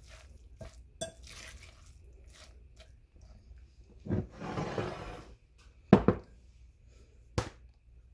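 A fork stirring and scraping a wet shredded-zucchini mixture in a glass mixing bowl, with light clinks of metal on glass and a longer scrape about halfway through. Near the end come two sharp knocks, the first the loudest, as glassware is set down on the counter.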